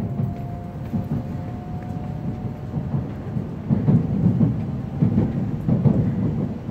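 E7-series shinkansen heard from inside the passenger cabin: a low rumble of the train running, with irregular heavier thuds that grow louder in the second half. A faint whine slowly rises in pitch during the first few seconds.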